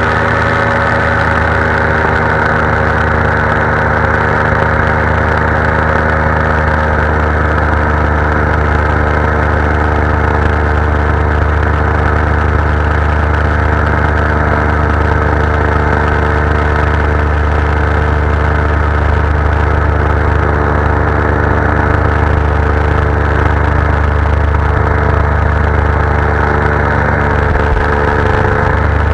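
Powered paraglider's (paramotor's) engine and propeller running steadily at a constant, unchanging pitch in flight.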